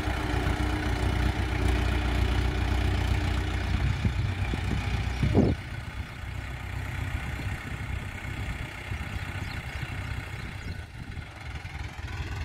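Mahindra Arjun 555 diesel tractor engine running steadily while it pulls a laser land leveller across loose soil. About five and a half seconds in there is a brief rising tone, and the engine sound then drops sharply and stays quieter.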